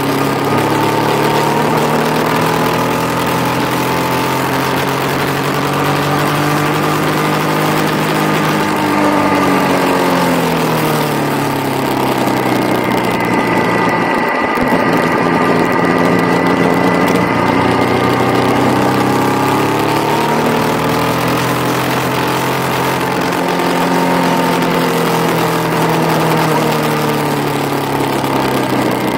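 Motorcycle engine running on a track lap, its pitch falling as the bike slows into a corner about halfway through, then climbing steadily as it accelerates out, with a second dip and rise near the end. A steady rush of wind noise sits under the engine.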